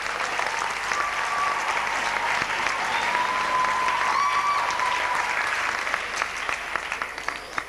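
Audience applauding steadily in a concert hall, with a thin held tone sounding over the clapping for a few seconds in the middle; the applause thins out near the end.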